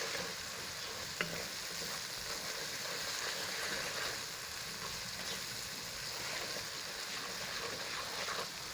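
Onion, tomato and spice masala frying in oil in a karahi, sizzling steadily as it is stirred, with one sharp click about a second in. This is the bhuna stage, frying the spices until well done before the yogurt goes in.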